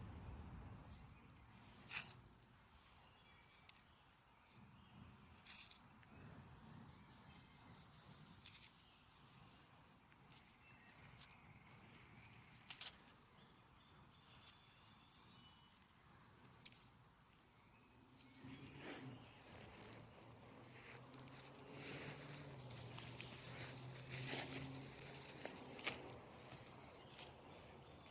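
Faint outdoor ambience: an insect's steady, high-pitched trill, with scattered small clicks and a low hum coming in about two-thirds of the way through.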